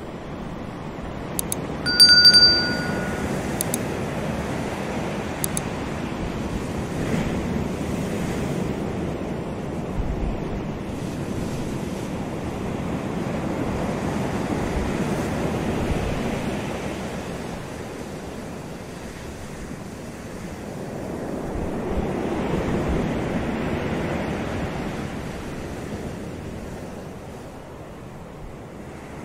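Ocean surf breaking on a rocky beach, the wash swelling and fading in slow surges every several seconds. About two seconds in, a subscribe-button sound effect: faint clicks and one short bell ding, the loudest sound.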